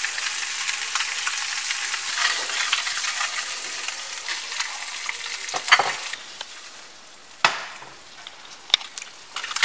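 Flounder fillets sizzling as they fry in butter in a nonstick pan, the sizzle quieter in the second half. Three sharp knocks come in the second half.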